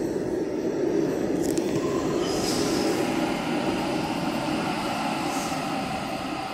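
Sydney Trains Waratah double-deck electric train running into the platform, its wheels rumbling on the rails. High squealing and whining tones join about two seconds in.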